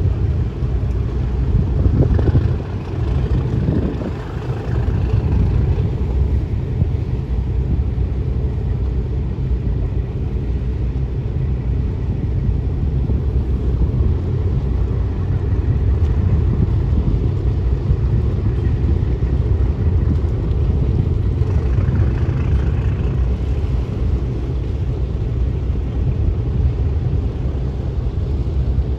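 Ferry engines running with a steady low rumble, with a few brief louder sounds near the start.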